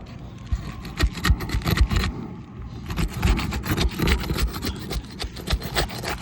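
Asphalt roof shingles being pried up to break their glued seal strips: irregular scraping, with sharp cracks and small tears as the adhesive bonds let go.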